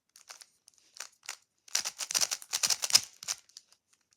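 Plastic Rubik's Cube being turned by hand: layers clicking and clacking, a few scattered clicks at first, then a dense flurry of quick turns in the middle.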